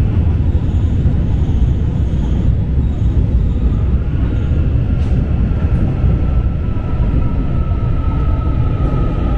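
Seoul Metro Line 2 subway train heard from inside the passenger car while running: a steady low rumble of wheels on rail, with a thin high whine that grows louder in the second half.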